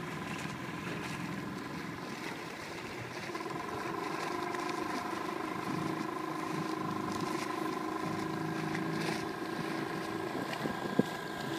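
Small outboard motor running steadily, a constant hum over the wash of water, with wind on the microphone. A single sharp knock sounds near the end.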